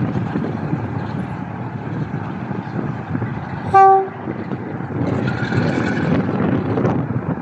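Class 47 diesel locomotive's Sulzer V12 engine running as it departs, with one short blast on its horn about four seconds in, the loudest moment. The engine grows louder from about five seconds in.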